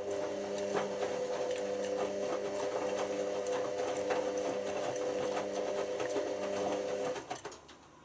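Hotpoint HV5L125 washing machine's motor running with a steady whine and a lot of clicking and rattling, then stopping about seven seconds in. The motor is faulty and runs at unstable speeds.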